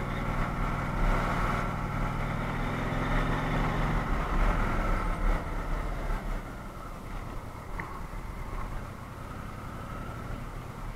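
Indian Chieftain Dark Horse's 1,811 cc V-twin engine pulling under acceleration, with wind rushing past the microphone. The engine note is strongest in the first four seconds, then the wind noise takes over.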